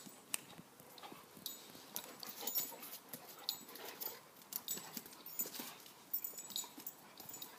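Sounds of a pet animal: irregular sharp clicks and short scuffles.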